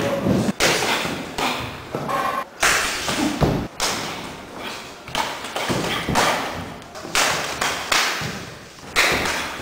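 Repeated thuds of punches and hand strikes landing on a sparring partner in protective headgear, in quick, irregular flurries.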